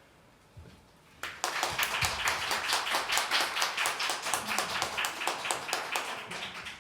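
Small audience clapping in applause at the end of a song, beginning about a second in and thinning out near the end.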